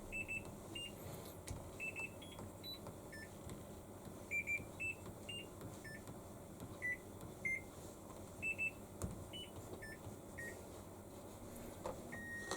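Control panel of a Hitachi BeatWash BW-V80C washing machine beeping as its buttons are pressed to set up a cycle. Many short electronic beeps at several different pitches come in singles, doubles and triples at irregular intervals, and a longer steady tone begins near the end.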